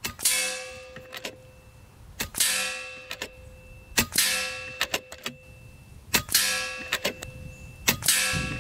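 Five quiet suppressed air rifle shots, about two seconds apart, each followed by a ringing metallic clang as the pellet strikes the metal target trap, with short clicks between shots.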